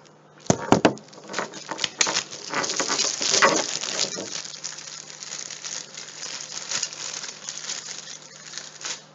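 Hand tools being rummaged through and handled: a couple of sharp knocks about half a second in, then a long run of small clicks, clatter and rustling that fades near the end.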